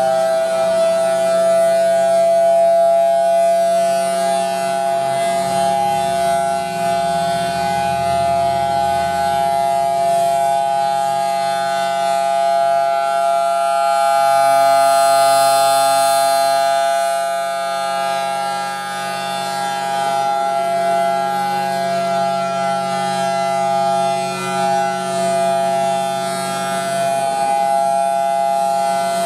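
Federal Signal Thunderbolt 1003 dual-tone siren (5/6 port) sounding the steady Alert signal: a held chord at one pitch. It swells and fades slowly in loudness as the rotating head sweeps past, loudest about halfway through.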